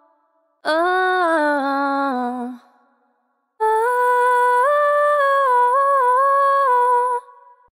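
Two wet female vocal ad-lib samples, wordless sung phrases: a short phrase that swoops up and falls back about a second in, then a longer, higher phrase of held notes stepping up and down from about halfway.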